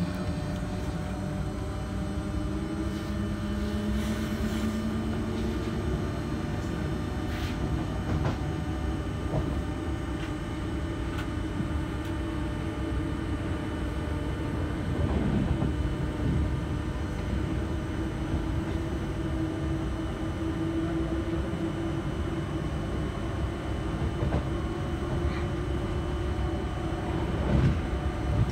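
Interior of a moving SNCF Z 20500 double-deck electric train: a steady rumble of wheels on rail with a faint motor whine that rises slowly in pitch. A few knocks from the rails, the loudest near the end.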